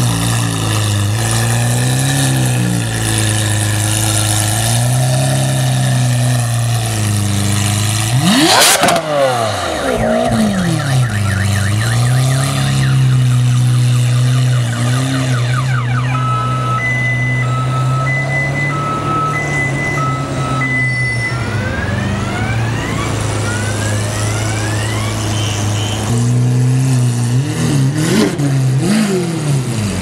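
Lamborghini Aventador V12 with an IPE exhaust idling, blipped in short revs, with one loud rev rising and falling about eight seconds in. Past the middle a car alarm goes off, beeping in two alternating tones for about five seconds, then sounding a series of rising whoops, before more engine revs near the end.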